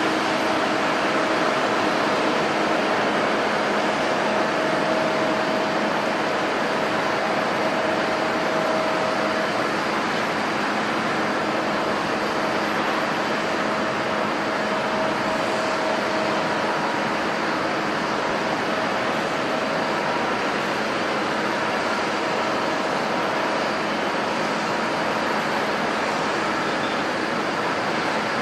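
Jet airliner engines running, a steady noise with faint humming tones that come and go.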